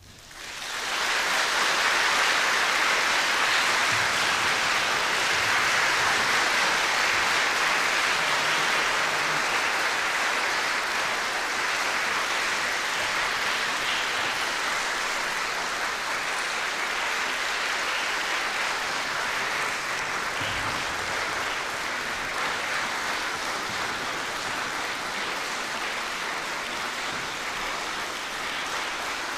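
Concert audience applauding: the clapping swells up about a second in, then holds as a steady dense patter that slowly tapers.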